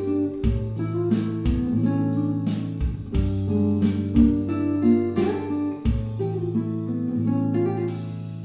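Background music: an acoustic guitar strummed and plucked over a steady beat.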